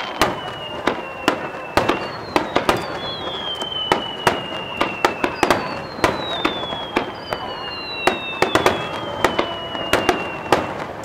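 Aerial fireworks display: shells bursting in quick succession with sharp bangs and cracks over a continuous crackle. Several high whistles slide slowly down in pitch, each lasting a second or more.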